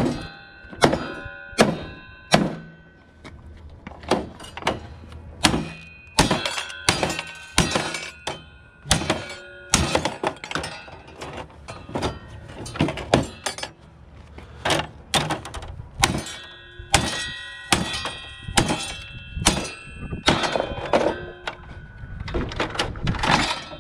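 Hatchet blows on a table saw's motor and blade assembly inside its plastic housing, knocking the motor loose to get it out for scrap. The blows are sharp and irregular, roughly one a second, and many leave a short metallic ring.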